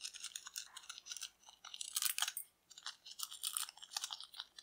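A cut-open miniature latex balloon squeezed and rubbed between the fingers as its beads are pushed out into a glass bowl: an irregular run of small crackles and clicks.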